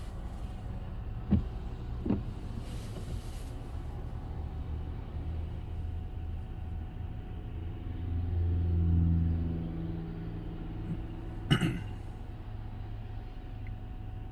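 Engine of heavy machinery running steadily, swelling louder for a couple of seconds in the second half, with two sharp knocks about a second and two seconds in and a louder sharp crack a few seconds before the end.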